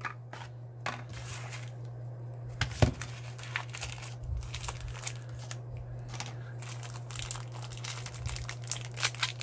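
Knife packaging being unwrapped: irregular crinkling and tearing of the wrapper, with one sharper snap about three seconds in, over a steady low hum.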